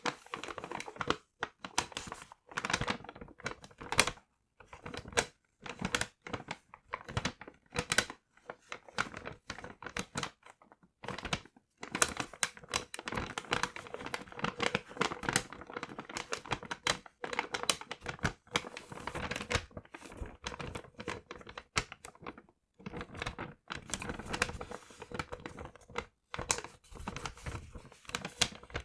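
Paper crinkling and rustling as it is handled, in irregular bursts with short pauses.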